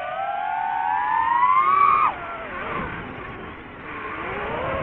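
DJI FPV drone's motors and propellers whining, the pitch climbing steadily as the throttle rises, then cutting off sharply about two seconds in. The whine sags and starts climbing again over the last second.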